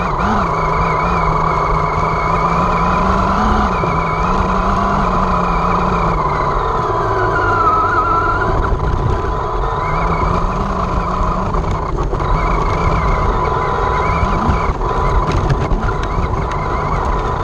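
Radio-controlled short-course truck driving over grass and dirt: a steady rumble of tyres and chassis, with a motor whine that rises and falls as the throttle changes, and a thin steady high tone throughout.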